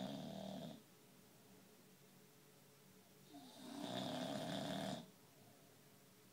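Sleeping pets snoring. One snore fades out within the first second, and a longer snore starts about three seconds in and stops at about five seconds.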